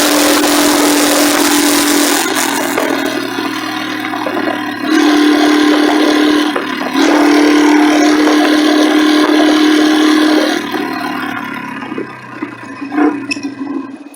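Motorcycle on the move heard at a handlebar-mounted phone: wind rush over a steady engine hum that holds one pitch. The wind is heaviest at first and eases after about two seconds. After about eleven seconds the sound drops away and turns uneven, with a few sharp knocks near the end.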